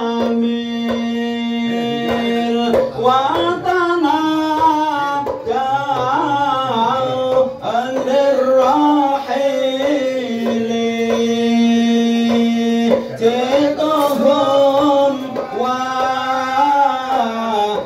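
Men singing sholawat of the mahallul qiyam in devotional style, without drums. There is a long held note at the start and another about ten seconds in, with winding melodic runs between.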